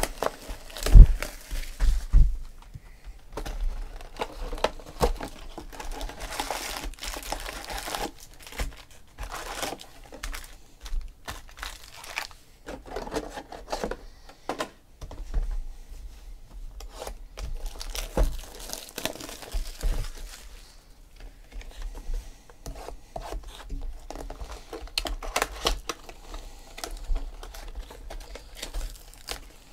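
Plastic wrap and foil trading-card packs crinkling and tearing as card boxes are opened and their packs handled, with irregular rustles and clicks. Two heavy thumps about one and two seconds in.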